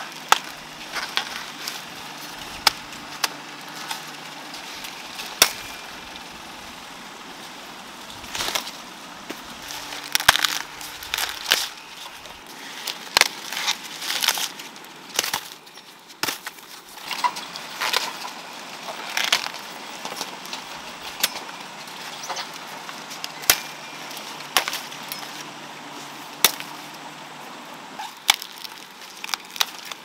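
Sharp snaps and cracks at irregular intervals, thickest in the middle stretch, of plant stalks or stems being snapped off by hand during harvesting.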